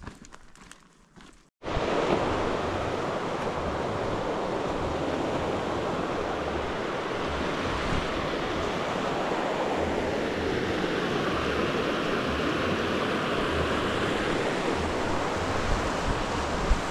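Rushing mountain creek tumbling over rocks, a loud, steady rush of white water that comes in abruptly about a second and a half in.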